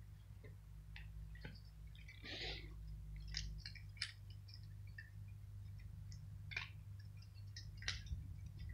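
Cats crunching dry kibble: faint, scattered crunches and clicks over a low steady hum, with a brief noisier patch about two and a half seconds in.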